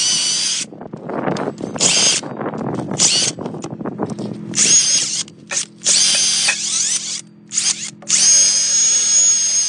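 Handheld power drill/driver run in about eight short bursts, each a high whine that spins up and stops, the last run the longest, over a low steady hum.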